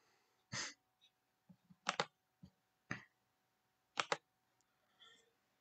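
Computer mouse clicking: a few separate clicks, with quick double clicks about two and four seconds in.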